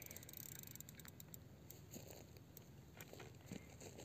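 Near silence: faint background hum with a few soft, scattered clicks.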